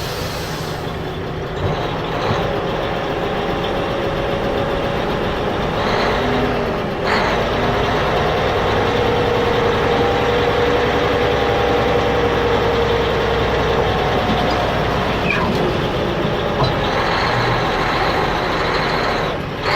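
Truck engine running steadily, with a sharp knock about seven seconds in.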